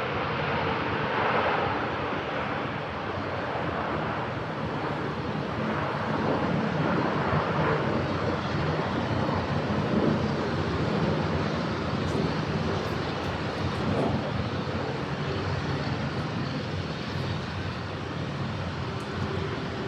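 Jet engine noise of a landing Boeing 747-8 airliner, with its four GEnx turbofans: a steady rush with low droning tones underneath that swells and eases only slightly.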